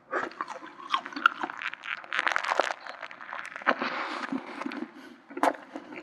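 Close-miked chewing of a mouthful of McDonald's burger: moist crunching mouth noises with many scattered sharp clicks.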